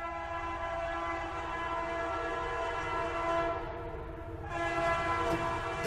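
Passenger train's horn sounding one long, steady blast over the low rumble of the train running; the horn fades briefly about three and a half seconds in, then swells again.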